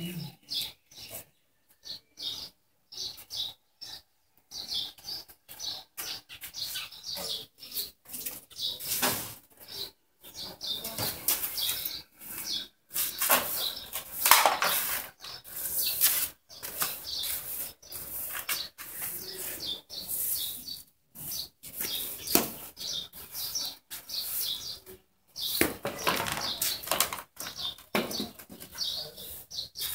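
Broom sweeping sawdust across brick paving in quick, uneven swishes, stroke after stroke with short pauses between.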